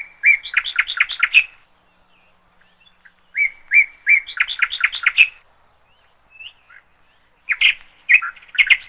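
A songbird singing a repeated phrase: a short steady whistled note, then a quick run of chirps. It sings three times, about three and a half seconds apart.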